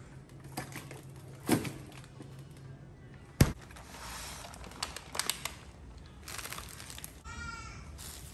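Refrigerator humming with the door open, a knock, then a sharp thud about three and a half seconds in as the door shuts. After that, plastic-wrapped groceries rustle and are set down on a wooden table with a few light clicks, and a short squeak comes near the end.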